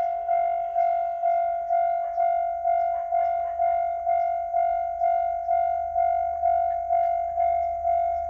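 Japanese railway level-crossing alarm of the older, un-updated type, sounding its electronic 'kan-kan' warning tone. Each strike is a pitched ding that fades quickly, repeating evenly about twice a second; a low rumble grows beneath it toward the end.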